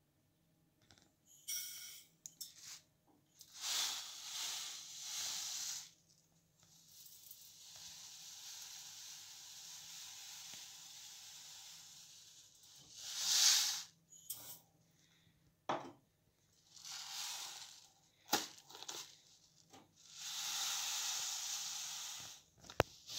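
Dry couscous grains pouring into a stainless steel pot, a hiss that comes in several pours of a second to several seconds each, with pauses between, and a few sharp knocks.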